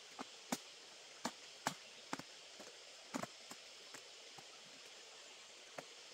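Sharp, irregular knocks of a hand tool chopping into soil and brush, about ten strikes, the loudest in the first three seconds and sparser after, over a steady faint hiss.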